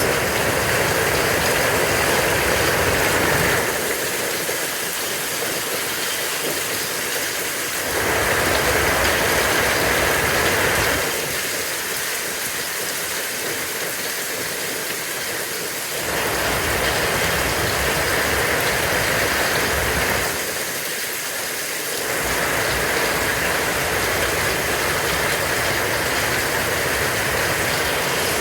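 A hail storm: a dense, steady hiss of hail and rain pelting down, with a low rumble that comes and goes in stretches of a few seconds.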